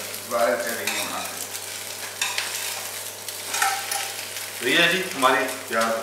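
Bread omelette sizzling in a frying pan on a gas stove, with a metal utensil repeatedly scraping and clicking against the pan as the food is stirred and turned.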